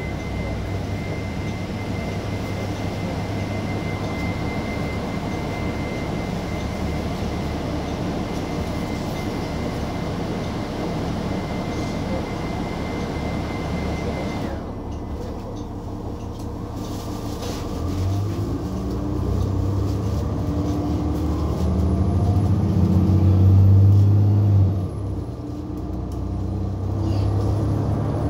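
Bus engine and road noise heard inside the passenger cabin. It starts as a steady drone with a thin high whine. About 18 s in, the engine rumble rises in pitch and loudness as the bus accelerates, falls back suddenly near 25 s, and climbs again.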